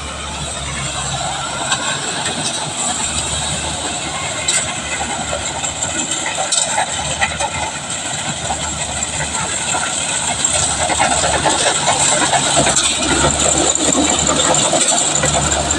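Kubota rice combine harvester running at work: a steady engine note under a dense mechanical din from the machinery, growing somewhat louder in the last few seconds.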